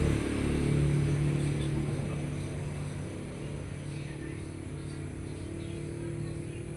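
A motor vehicle's engine running steadily and gradually fading away.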